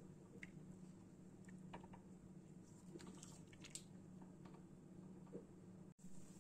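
Faint sloshing of a thin masala broth being stirred with a spoon in a cooking pot, with scattered soft clicks of the spoon against the pot over a low steady hum.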